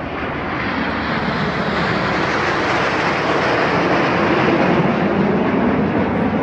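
A formation of BAE Hawk jet trainers flying past, their turbofan engines making a broad jet roar that swells and is loudest about four to five seconds in.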